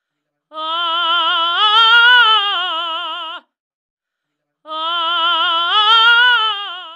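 A woman singing one long held vowel with strong vibrato, the pitch climbing and then sinking back. The same phrase comes twice, each about three seconds long, with a short gap between.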